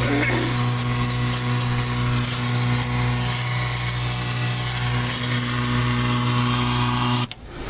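A steady buzzing hum with an even, machine-like drone that cuts off suddenly near the end.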